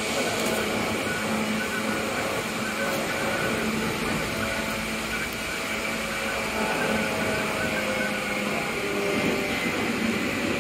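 Tokyu 8500 series electric train running, heard from inside the car: a steady rumble of wheels on rail with a few steady whining tones over it.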